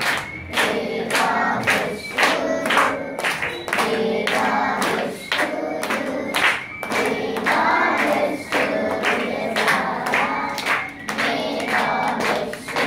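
A group singing a birthday song together, clapping in time at about two claps a second.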